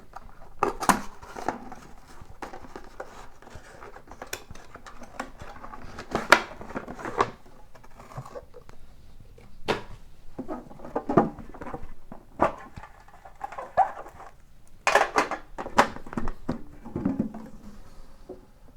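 Cutting open and handling a sealed cardboard hockey card hobby box: irregular scrapes, rustles and sharp knocks, some louder than others.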